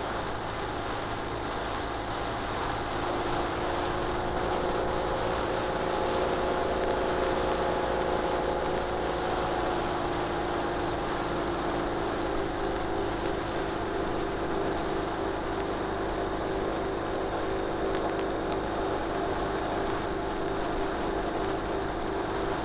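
Ural Retro sidecar motorcycle's air-cooled flat-twin engine running at cruising speed, with a steady rush of road and wind noise. It grows a little louder over the first few seconds, then holds steady.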